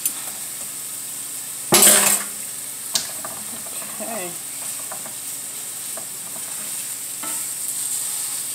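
Ground pork sausage sizzling steadily as it browns in a nonstick frying pan, stirred and scraped with a wooden spatula. A louder burst of spatula scraping comes about two seconds in, followed by a sharp tap a second later.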